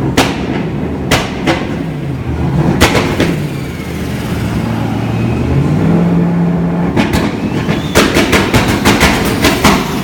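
Heavily tuned 1200 hp Toyota Supra engine revving up and down, with sharp exhaust pops and bangs. The bangs are single at first, then come in a rapid string of about four a second near the end.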